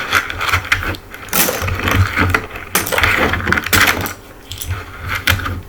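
Small puzzle pieces clattering and clicking against each other as they are gathered up and put back, in a run of quick rattles.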